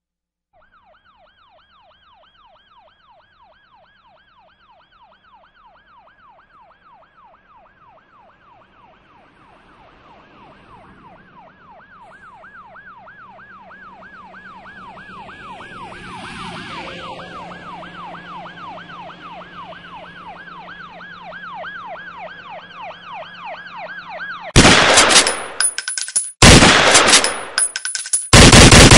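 An emergency-vehicle siren in a fast up-and-down yelp, growing steadily louder. Near the end it is drowned by three very loud, dense bursts of rapid gunfire, like machine-gun fire.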